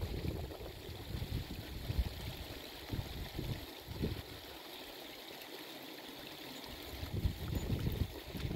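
A small stream trickling and gurgling over stones, with uneven low rumbles over it that ease off for a couple of seconds midway.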